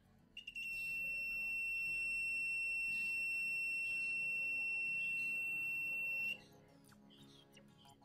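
Multimeter continuity buzzer giving one steady, high-pitched beep lasting about six seconds, after a couple of short blips, while a power-cord wire and plug prong are clipped across the test leads: the beep signals that the cord conductor is continuous. Soft background music plays underneath.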